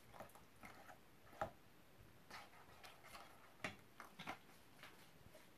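Faint, irregular clicks and light taps of kitchen utensils and containers being handled, about a dozen in all, against near silence.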